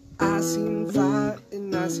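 A man singing to his own strummed acoustic guitar, with fresh chord strokes about three times in two seconds and a brief gap in the middle.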